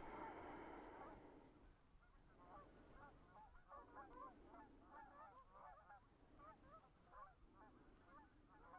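Faint calls of birds, many short honk-like calls overlapping one another.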